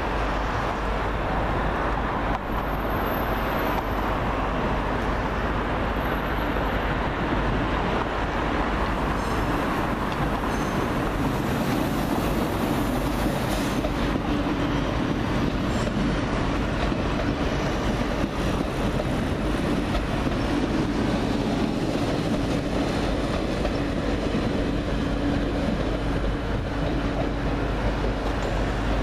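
Double-deck electric regional train running past on the tracks below, a steady rolling rumble with a low steady hum that sets in about halfway through.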